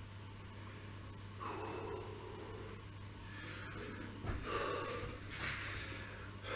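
A man breathing hard and puffing out several heavy breaths, winded from a set of push-ups. A short low thump about four seconds in, as his knees come down on the exercise mat.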